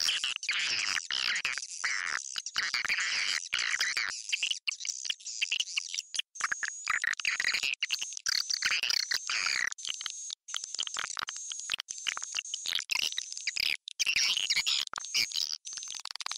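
Swiftlet lure-call recording: dense, rapid swiftlet chirping and twittering, with a thin high whistling note repeating through the second half. It is the kind of call track played from tweeters in a swiftlet house to attract swiftlets to roost and nest.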